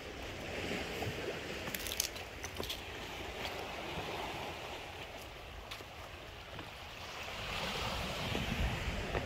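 Small sea waves washing onto a rocky pebble shore, swelling twice, with wind on the microphone and a few light clicks.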